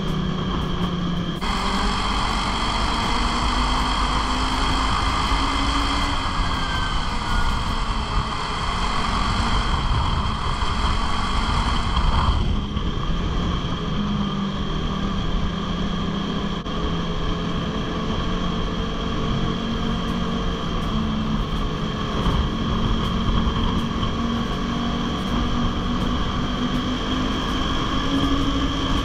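Ski-Doo 600 four-stroke snowmobile engine running at trail cruising speed, its pitch wavering with the throttle and climbing near the end as the sled speeds up. A steady high whine runs over it, and a louder rushing hiss comes in about two seconds in and cuts off suddenly near the middle.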